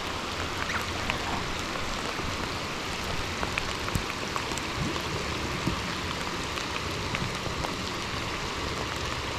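Rain falling steadily, with many small drops ticking.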